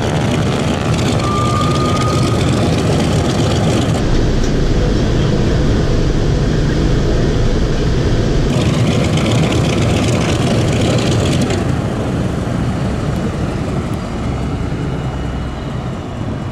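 A B-29 Superfortress's four Wright R-3350 radial engines running at low power while the bomber taxis, a steady drone of engines and propellers. The tone shifts a few times as the sound switches between outside the aircraft and inside the cockpit.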